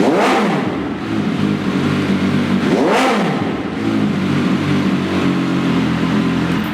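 MV Agusta Dragster RC's 798 cc three-cylinder engine idling through an SCS1 slip-on silencer, blipped twice: the revs shoot up and fall back right at the start and again about three seconds in.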